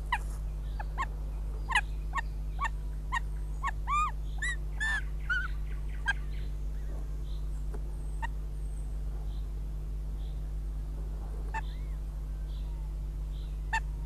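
Northern goshawks calling at the nest: a run of short, sharp call notes, quickening around four to five seconds in with some notes rising in pitch, then only a few scattered calls, over a steady low electrical hum.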